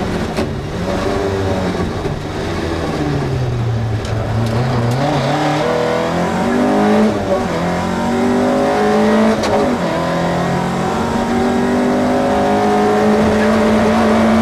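Opel Ascona A rally car's four-cylinder engine heard from inside the cabin at racing pace. The revs drop around two to four seconds in as it slows, then climb through several quick upshifts, each a rising pitch that falls back, and are held high and steady near the end.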